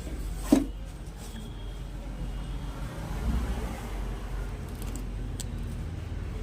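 A steady low hum, with a sharp loud thump about half a second in and a faint click about five seconds later.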